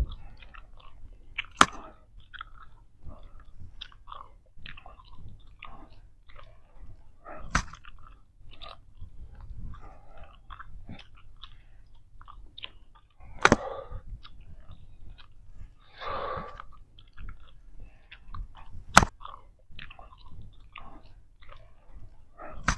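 Big League Chew bubble gum being chewed: a continuous run of irregular, smacking mouth clicks several times a second, with a few sharper, louder snaps spread through, the loudest about 19 seconds in.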